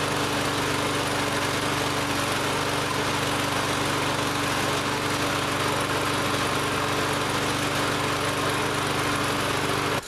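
Lawn-Boy push mower's small petrol engine running steadily, with its air filter off, after carb cleaner has loosened its gummed-up carburettor: running pretty good now. The engine cuts off suddenly at the very end.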